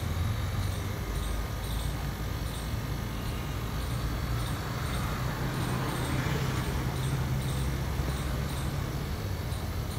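Tractor diesel engine idling with a steady low rumble, and a faint swell of hiss about six seconds in.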